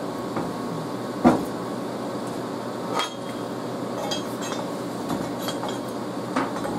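Cast iron exhaust manifold being unwrapped from a welding blanket and handled on a steel welding table: a few sharp metal knocks and clinks, the loudest about a second in and another around three seconds in, with lighter ticks after, over a steady background hum.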